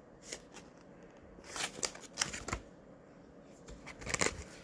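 Plastic vacuum-sealer bag crinkling and rustling as it is handled, in two spells of crackling: one about a second and a half in, and a shorter one about four seconds in.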